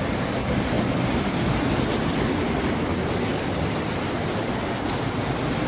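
Steady, even rush of a waterfall's falling water, with no breaks.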